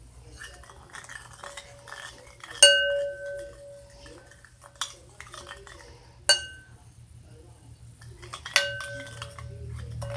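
A spoon stirring and scraping in a bowl of slime mixture, with three sharp ringing clinks as it strikes the bowl, spaced a few seconds apart, the first the loudest.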